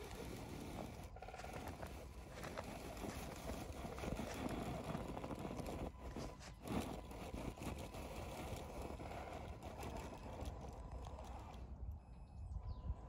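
RC scale crawler driving through deep snow: its electric motor and gears running under load while the tyres churn and crunch the snow, with many small crackles. The sound drops away about twelve seconds in as the car pulls off.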